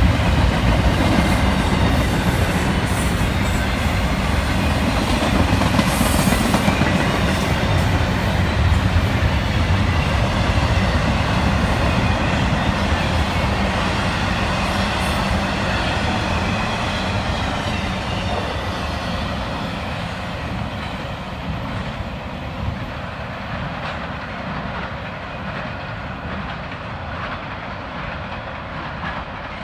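CSX intermodal freight train rolling past, a steady noise of wheels on rail that grows slowly quieter over the second half.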